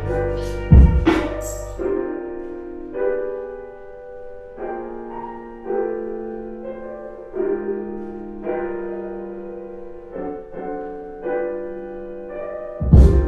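Lo-fi hip-hop instrumental: a drum beat with deep bass for the first two seconds, then the drums drop out, leaving slow, mellow keyboard chords on their own, and the beat comes back near the end.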